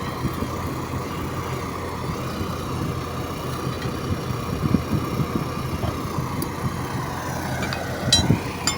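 An engine idling steadily, with a few short knocks over it, the loudest about eight seconds in.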